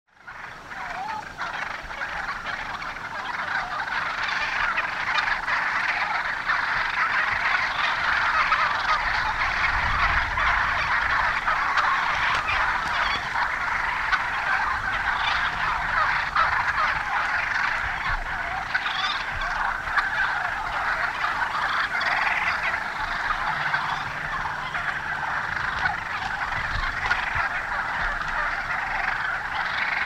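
A flock of wild turkey hens calling constantly, a dense chatter of overlapping calls, as the hens sort out their pecking order.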